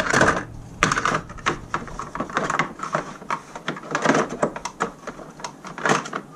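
Irregular clicks, knocks and clatter of objects being handled and moved about while rummaging for another hard drive, with a louder knock near the end.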